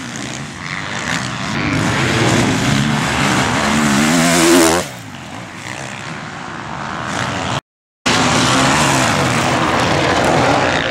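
Motocross bike engines revving hard as riders accelerate away over a dirt track, the pitch climbing and falling as they work through the gears. The sound cuts out for a split second about three quarters of the way in, then engine noise resumes.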